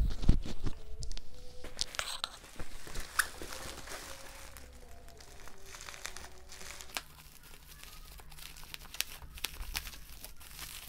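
Thick bubble wrap crinkling and scissors snipping as a bubble-wrapped parcel sealed with plastic tape is cut open, a scatter of faint crackles and snips.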